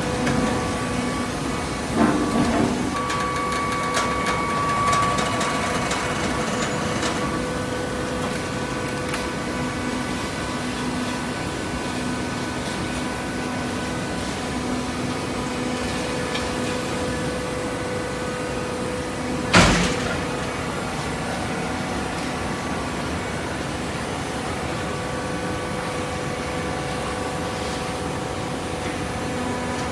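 Horizontal hydraulic carton baler running with a steady hum, with a couple of knocks about two seconds in and one loud clunk about two-thirds of the way through.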